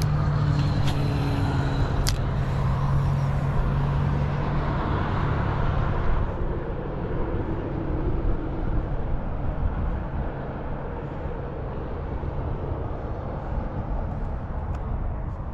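Road traffic: a motor vehicle's engine hum and tyre noise, loudest for the first six seconds and then easing into a steady, lower background rumble. Two sharp clicks come in the first two seconds.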